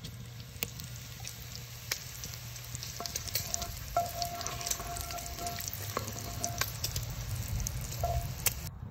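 Diced bacon sizzling and popping in a cast-iron pot over a wood fire, rendering its fat, while a wooden spoon stirs it around the pan.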